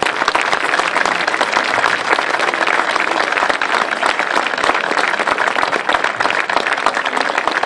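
An audience and people on stage applauding: dense, steady clapping from many hands.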